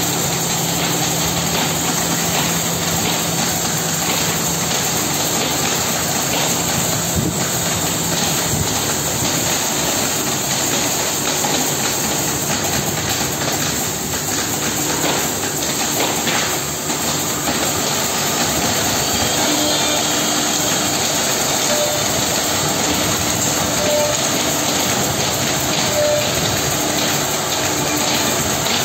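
Holztek HT-R3 three-head CNC nesting router cutting a wood panel, its spindles and dust extraction running with a loud, steady noise.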